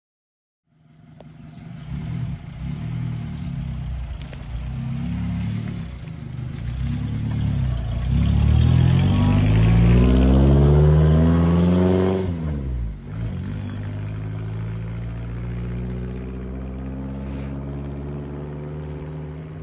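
1946 Morris Eight Series E's small four-cylinder side-valve engine starting up about a second in and pulling away, its note rising as it accelerates to its loudest about ten seconds in, then dropping sharply and settling to a steady, quieter run.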